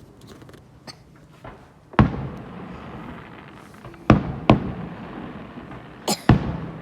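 Fireworks bursting: five sharp bangs, the first about two seconds in, then a close pair near the middle and another close pair near the end, each followed by a rumbling echo.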